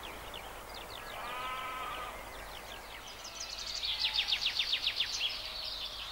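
Outdoor birdsong: a bird sings quick, high, falling notes that build a few seconds in into a fast trill of about eight notes a second. A shorter, lower pitched call comes about a second in.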